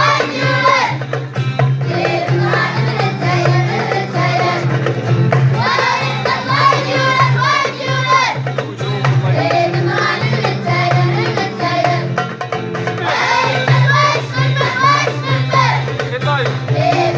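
A school vocal group of children singing an Amazigh song, over a steady low accompaniment with light percussion.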